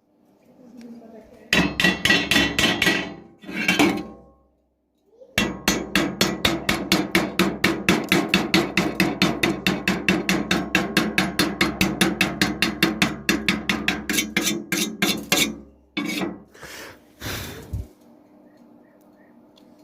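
Hammer striking metal in rapid, even blows, about five a second. Two short runs come first, then a long run of about ten seconds, then a few separate knocks.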